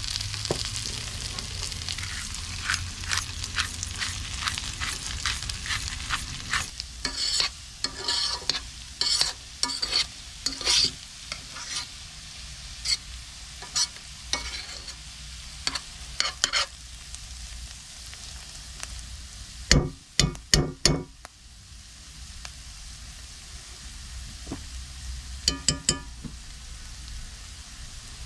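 Food frying in butter in a cast-iron skillet, sizzling steadily, while a metal spoon stirs it with many sharp scraping clicks against the pan. About twenty seconds in come four loud knocks, and a quick run of clicks near the end.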